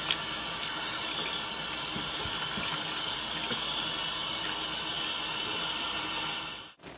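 Bathroom sink faucet running steadily into the basin while hands are washed under the stream. The sound cuts off suddenly near the end.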